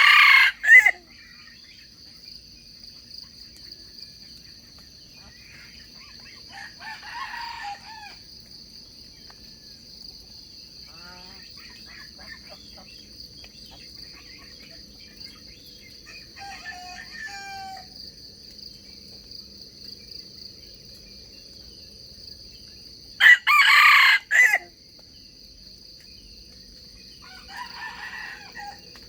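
Wild junglefowl roosters crowing: a loud close crow right at the start and another about 23 seconds in, with fainter crows from farther off in between and near the end. A steady high-pitched hum runs underneath.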